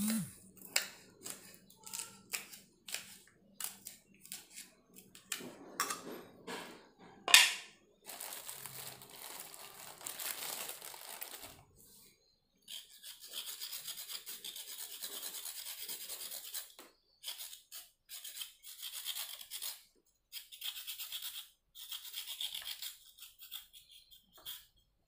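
A kitchen knife chops vegetables on a small wooden cutting board: a run of sharp taps, with one louder knock about seven seconds in. The knife then scrapes and peels a carrot held in the hand, in quick, even scraping strokes that come in runs of several seconds.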